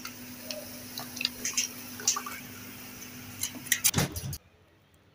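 Freshly poured 7 Up fizzing in glasses of fruit sharbat: scattered small ticks of bursting bubbles over a steady low hum. Near the end comes a louder cluster of clicks, then the sound cuts off suddenly.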